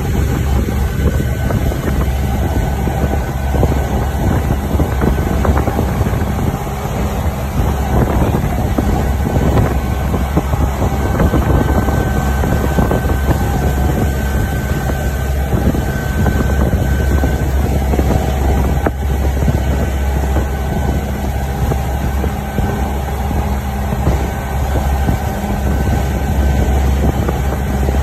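Small motorboat's engine running at a steady cruising pace, a constant low drone, with the wash of water churning in its wake.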